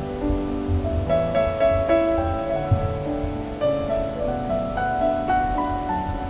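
Background music carried by a piano melody, one note after another.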